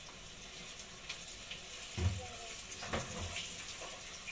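Pieces of marlin frying in hot oil in a pan: a steady sizzle with scattered crackles. Two dull thumps come about two and three seconds in.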